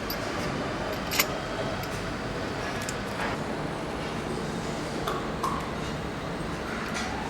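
Steady hum of factory machinery, with a few sharp metallic clinks of parts and tools being handled, the loudest about a second in.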